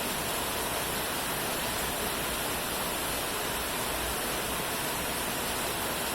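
Steady rain falling, heard as a dense, even hiss with no separate drops or changes.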